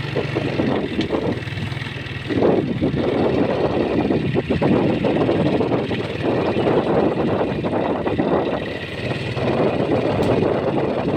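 Vehicle engine running while driving: a steady low hum under an uneven rushing noise that swells and dips.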